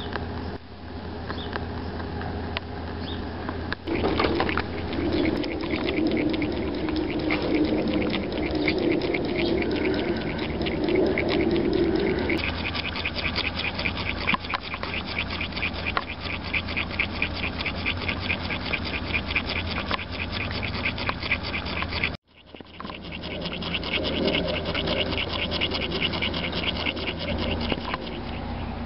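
Homemade tin-can Stirling engine running on an algae-oil flame, its crank and linkage ticking in a fast, even rhythm from about twelve seconds in. Before that there is a steady low rushing sound, with a single knock about four seconds in. The sound drops out for a moment about 22 seconds in, then the ticking resumes.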